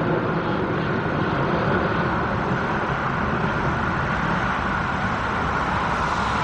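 Jet engines of a Boeing 777F freighter, its General Electric GE90 turbofans running at low taxi power close by: a steady, even rumble with a hiss on top.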